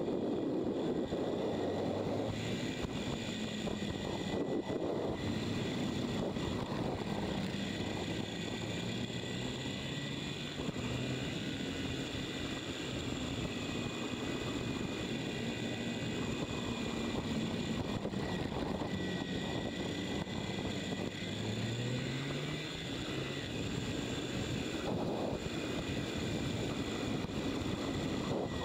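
Motorcycle engine running under way with wind noise on the onboard microphone, its pitch rising and falling with the throttle through the bends, with one clear rise in pitch about three-quarters of the way through.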